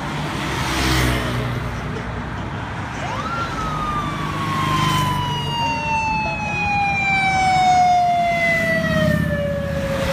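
Road traffic passing close by, cars, vans and motorbikes going past one after another with engine rumble and tyre noise. About three seconds in, a single whistle-like tone rises sharply, then slides slowly and steadily down in pitch until the end.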